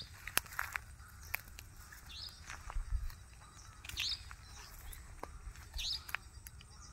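A bird calling: a short rising chirp repeated about every two seconds, with scattered sharp clicks and crackles in between.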